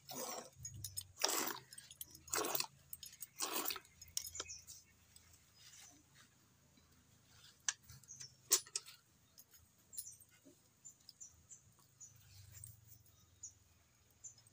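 A cow being milked by hand into an aluminium pail: a hissing spurt of milk hits the pail about once a second for the first four seconds. Scattered light clicks and knocks follow.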